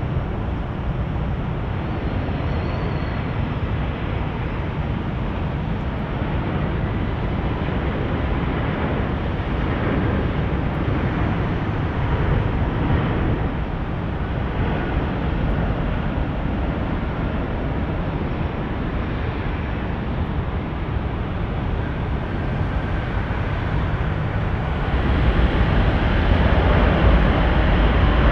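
Boeing 777-200 twin-engine jet airliner landing: a steady jet rumble that grows louder and deeper about 25 seconds in.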